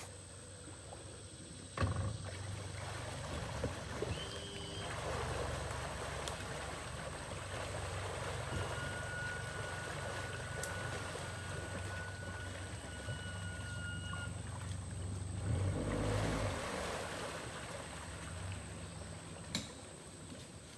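A small boat motor humming low and steady, with a faint steady whine in the middle and a couple of sharp knocks.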